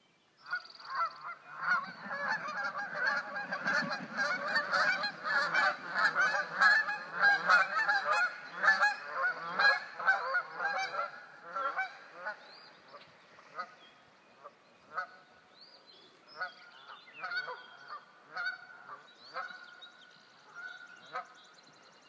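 A group of geese honking on a pond: a dense, overlapping run of honks for the first dozen seconds, then fewer, spaced-out calls.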